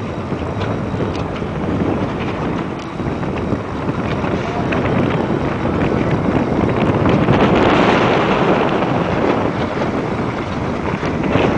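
Wind buffeting the microphone, a steady rushing that gusts stronger about halfway through.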